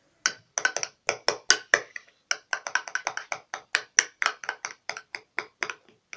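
A utensil rapidly stirring glue and shaving foam in a bowl, clicking against the bowl's side about four to five times a second.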